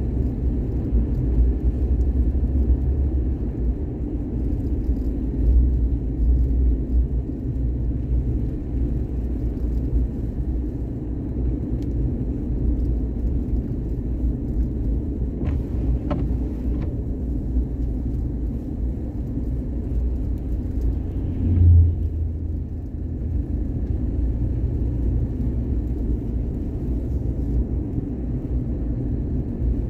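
Steady low rumble of a car on the move, with a brief low thump about two-thirds of the way through.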